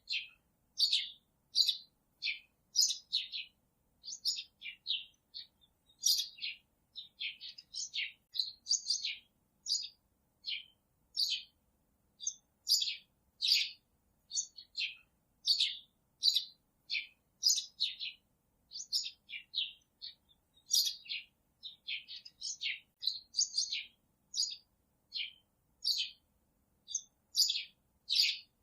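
Small birds chirping: short, high chirps, a couple a second and irregularly spaced, with silence between them.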